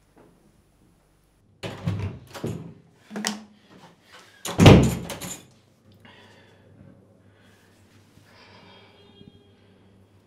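A run of heavy bangs and thuds, four or five of them starting about a second and a half in, the last and loudest about four and a half seconds in. After that only a faint low hum remains.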